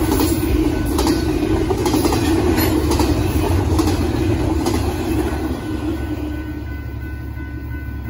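Double-stack intermodal freight cars rolling past: a steady rumble of steel wheels on the rails with a few sharp wheel clacks. It fades after about five and a half seconds as the last car goes by.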